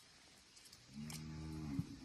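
A cow mooing once: a single low, steady moo about a second long, starting about a second in.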